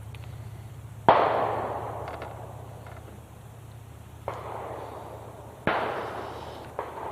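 Three sharp knocks, about a second in, past four seconds and near six seconds, each trailing off over a second or so, from a hooked largemouth bass thrashing against the kayak while it is being unhooked.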